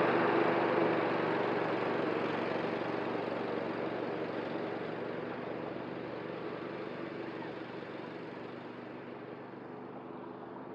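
Cub Cadet ZTS1 zero-turn riding mower running steadily while mowing, its engine fading smoothly as the mower drives away.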